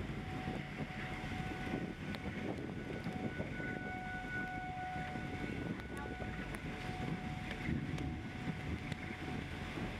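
Wind buffeting the microphone: a steady, gusty rushing rumble. A faint steady high whine comes and goes over it.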